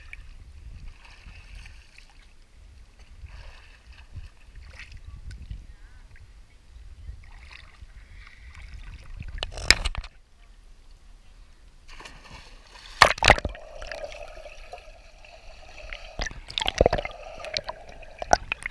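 Swimming-pool water lapping and sloshing around a GoPro held at the surface. Later come loud splashes as a swimmer enters the water, followed by muffled underwater sound with more splashes.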